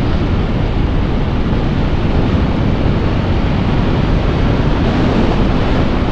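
Steady wind rush over the microphone of a moving motorcycle, mixed with the bike's engine and tyre noise at road speed.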